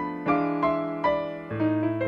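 Solo piano accompaniment: a gentle melody of single struck notes, each fading after it is struck, with a low bass note coming in near the end.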